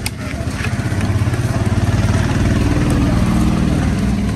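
A small engine running steadily at idle close by, swelling about a second in and staying loud. A single sharp knock of a knife on the fish and block comes at the very start.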